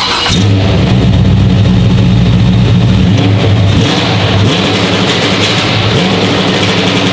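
LS-swapped Chevy S10's LQ9 6.0-litre V8 firing up and running with a deep steady note, the pitch wavering a few times as the throttle is blipped.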